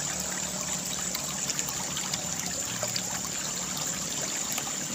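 Water running steadily down a narrow concrete irrigation channel, a continuous trickling.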